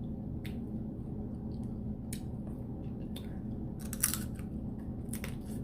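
Close-up eating sounds during a seafood boil: chewing and biting with scattered short clicks and cracks, the loudest crack about four seconds in.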